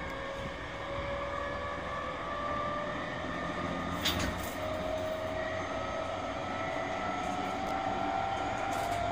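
Onboard running sound of a refurbished JR East E231 series 1000 electric commuter train: the traction motor whine rises slowly in pitch as the train gathers speed, over steady wheel and rail noise. There is one short, sharp clack about four seconds in.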